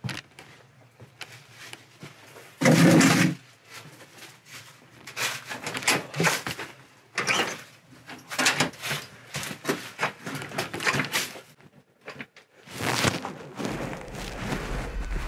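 Irregular knocks, scuffs and rattles of people handling things at a metal front door, with a louder thump about three seconds in. Near the end the door handle is taken hold of as a low steady hum comes in.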